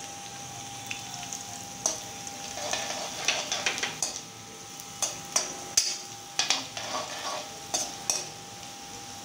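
Curry leaves, green chillies and mustard and cumin seeds sizzling in hot oil in an aluminium kadai for a tempering, with a steel spoon scraping and clinking against the pan in a run of short strokes from about two seconds in.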